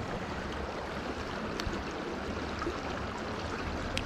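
River water running steadily, with a few faint scattered clicks over it.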